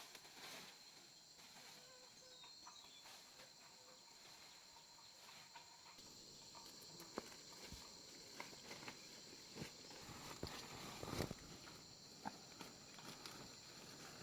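Faint, steady high-pitched insect chorus, with scattered light clicks and knocks that grow busier in the second half. The loudest knock comes about eleven seconds in.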